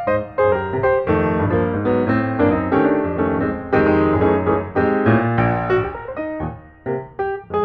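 Background piano music, a quick run of notes with no break.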